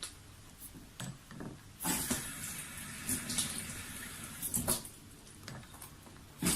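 Water running and splashing, like a tap into a sink, for a few seconds, with a few small clicks.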